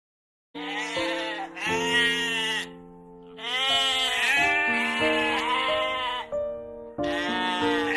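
Farm animal bleating over background music: about six wavering bleats, each roughly a second long with short gaps, starting about half a second in, while sustained musical notes play underneath.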